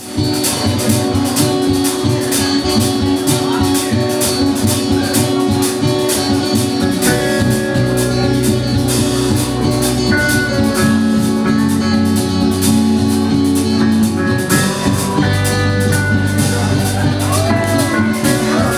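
Sea-shanty folk-rock band playing live: drums keep a steady beat under bass and guitars, with a higher held melody line coming in about seven seconds in.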